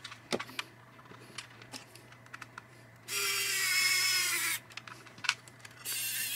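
Pen-style electric precision screwdriver running with a high whine for about a second and a half, driving a screw into a plastic camera mount on a drone canopy, with a shorter burst near the end. Before it, light clicks of the plastic mount being fitted by hand.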